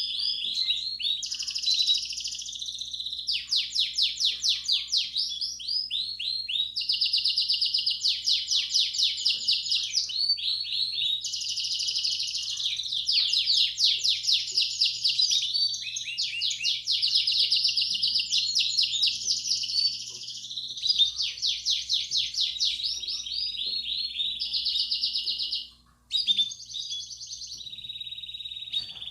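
Belgian canary singing a long, continuous song in the bell-like 'campainha' style: fast trills of rapidly repeated notes, the phrase changing every second or few. The song breaks off briefly near the end, then resumes.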